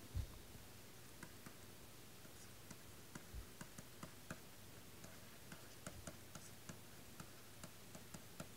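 Faint, irregular small ticks of a stylus tapping and writing on a pen tablet, with a soft low thump right at the start.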